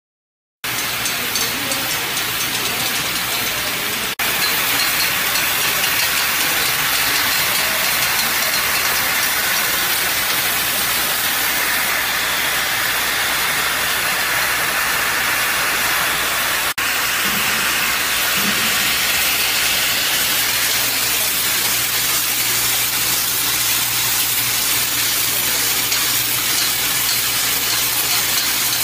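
Fully mechanical high-speed push-pull cap assembly machine running: a steady, dense clatter and hiss of caps feeding and being assembled, over a low steady hum.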